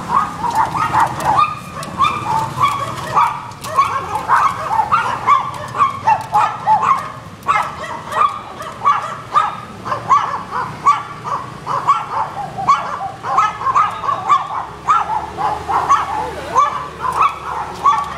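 Small dogs yapping nonstop in quick, short barks, about three a second.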